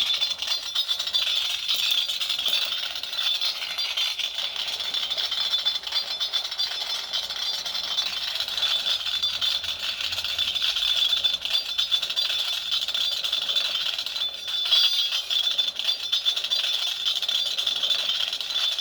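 Lightsaber sound board playing a lit-blade hum through the hilt's small speaker: a continuous, crackling, sputtering hum with a thin steady high tone in it.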